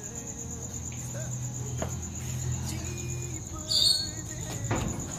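Crickets chirping steadily in a rapid, even pulse over a low steady hum. A brief sharp noise about four seconds in is the loudest sound.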